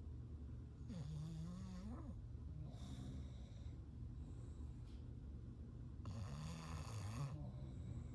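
English bulldog snoring in its sleep: two long, wavering snores, one about a second in and one about six seconds in, with a shorter, softer snore between.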